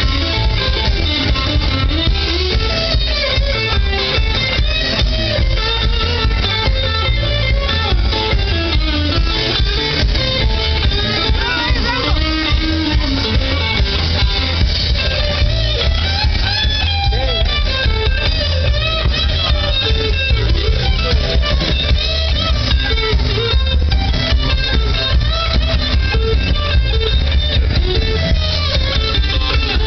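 Live blues trio playing a song through the stage PA: electric guitar, bass guitar and drum kit.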